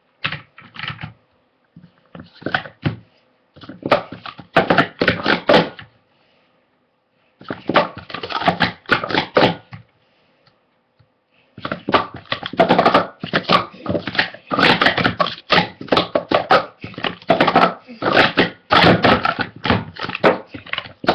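Plastic speed-stacking cups clattering rapidly as they are stacked up and brought down in fast runs. Short pauses come about six and ten seconds in, then the clatter runs unbroken to the end.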